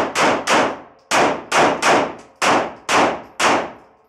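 Nine pistol shots fired fast in three groups of three, each shot with a short echoing tail: a timed drill putting three rounds on each of three targets.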